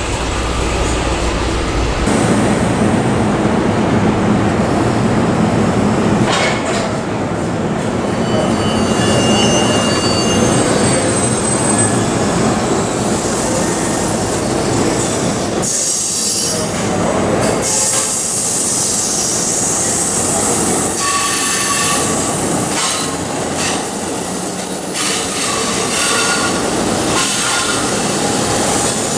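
A commuter train running past, a steady loud rumble with high, thin wheel squeals coming and going.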